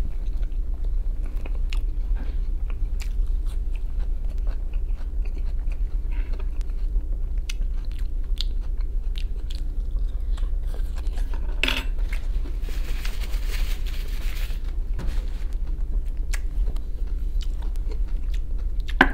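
A person chewing and biting into a meal of fried capelin, potatoes and Korean-style carrot close to the microphone, with soft crunches and many small clicks. A steady low hum runs underneath, and a soft hiss comes in for a couple of seconds a little past the middle.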